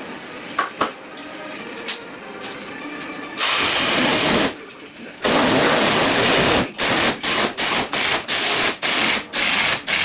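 Cordless drill-driver driving a screw into a wooden board. It runs for about a second, pauses briefly, then runs longer, and ends in a string of about eight short trigger bursts as the screw is seated. A few light knocks come first.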